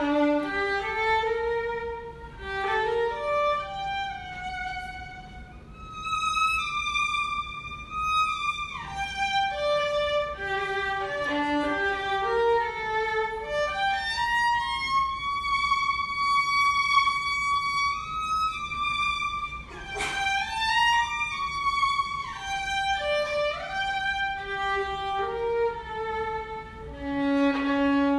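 Violin music: a slow melody of held notes with slides between pitches, one long note held for several seconds in the middle.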